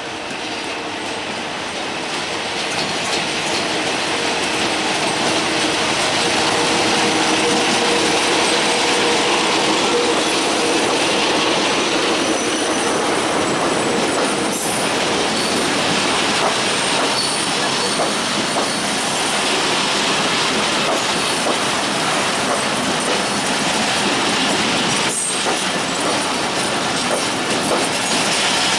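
Bombardier MX624 diesel locomotive and its passenger coaches passing close by at speed. The sound builds over the first few seconds as the locomotive comes alongside, then settles into a steady rush of wheels on rail with clicking over rail joints, a couple of sharp knocks, and high-pitched wheel squeal in the middle stretch.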